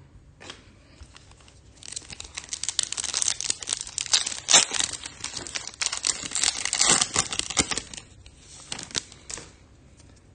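Plastic wrapper of a baseball card pack being torn open and crinkled. The crackling starts about two seconds in, runs thick for several seconds, and ends in a few separate crackles.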